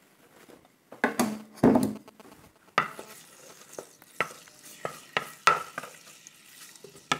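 Grated garlic sizzling in hot oil in an earthenware tajine, while a wooden spoon stirs it, scraping and knocking against the clay dish several times.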